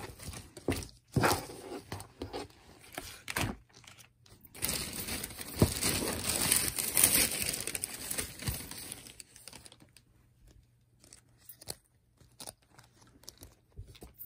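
Thin plastic mailer bags rustling and crinkling as items are handled and unpacked: short bursts at first, a longer stretch of steady crinkling in the middle, then only a few scattered small clicks and taps near the end.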